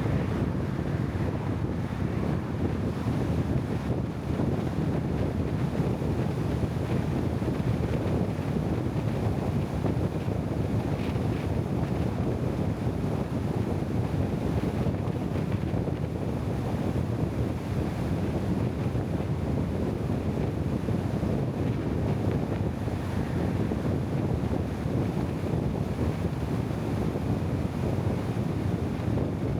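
Steady low rumbling noise, like wind on the microphone, even throughout with no distinct events.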